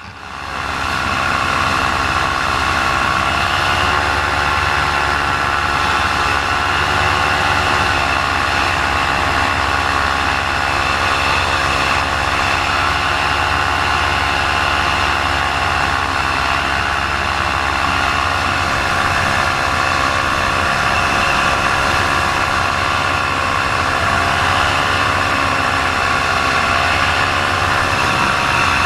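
Paramotor engine running steadily in flight, its pitch wavering slightly up and down a couple of times. The engine has trouble and is losing power.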